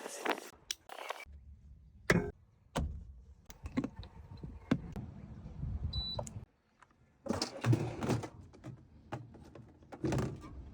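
Fitting work in a small enclosed space: scattered clicks and knocks, a low hum for a few seconds, a brief high beep, then two short bursts of louder noise near the end.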